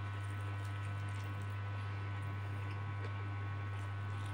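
Faint wet mouth sounds of chewing a mouthful of instant noodles, a few soft smacks and clicks, over a steady low hum.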